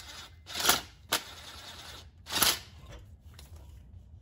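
Hand ratchet clicking in two short bursts, with a single sharp click between them, as it backs out a drive shaft-to-transmission flange bolt.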